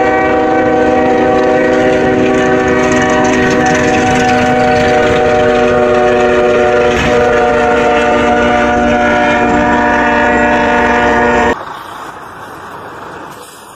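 Freight locomotive's air horn held down in a steady multi-note chord over the rumble of the passing train. It cuts off sharply near the end, leaving quieter road-vehicle noise.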